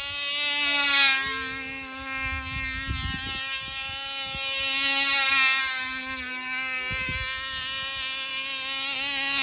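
Control-line model airplane's small engine buzzing at a steady high pitch as the plane circles. It swells louder three times, about every four and a half seconds, as the plane passes closest on each lap.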